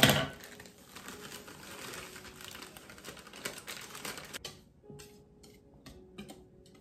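Plastic bag of cake mix crinkling as the powder is shaken out of it into a bowl, a dense crackly rustle for about four seconds after a sharp click at the start. A few light clicks of a wire whisk against the bowl follow.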